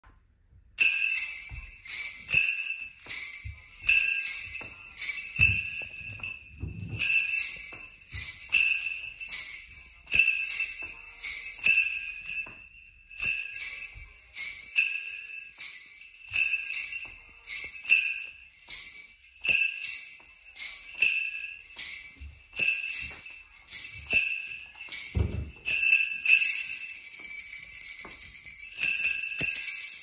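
Sleigh bells on a wooden stick and a hand-held wrist bell shaken together in a steady rhythm, with an accented jingle about once a second and a few low knocks. Near the end the shaking turns into a continuous jingle before the accents return.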